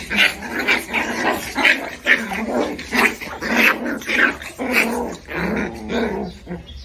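A dog growling and grumbling in a quick run of short, rising and falling vocal bursts, a few each second.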